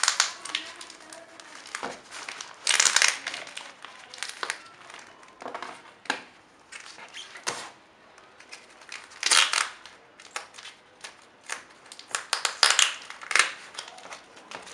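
Plastic courier mailer bag crinkling and rustling in irregular bursts as it is handled and cut open with a knife.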